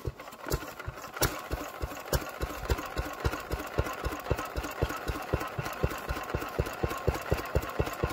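An engine running slowly at idle, firing in even, distinct beats about five or six times a second.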